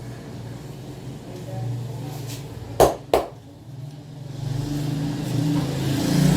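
Two sharp smacks about a third of a second apart from a barber's hands during a head massage, over a steady low rumble of road traffic that swells near the end.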